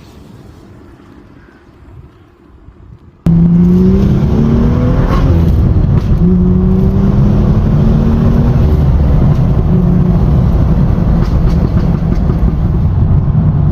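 Tuned BMW M235i turbocharged straight-six engine and exhaust. For about three seconds it is faint and low, then it suddenly becomes very loud. The engine pitch climbs several times as the car accelerates hard through the revs.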